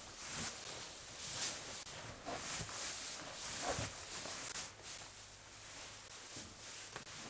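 Irregular rustling and scuffing in straw, soft noisy strokes following one another unevenly.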